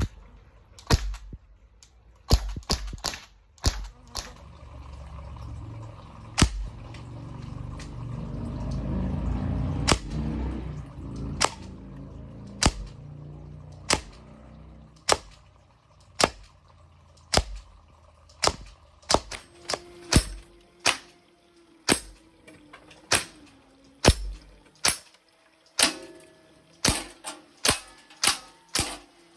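Crosman 1077 CO2 air rifle firing shot after shot, each a sharp pop; the shots come a few seconds apart at first, then in quick strings of about one to two a second in the second half. A low rumble swells and fades behind the early shots.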